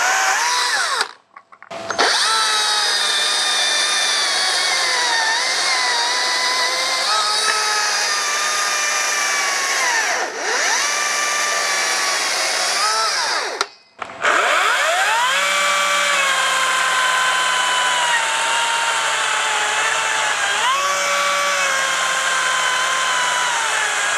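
Cordless electric chainsaws running at full speed through a 6-inch log: a loud, high motor-and-chain whine whose pitch sags as the chain bites under load and climbs back as it frees. The sound cuts out twice, about a second in and about halfway through, as one saw gives way to the next: first a Greenworks 48 V, then a STIHL MSA 220 C, then a Kärcher.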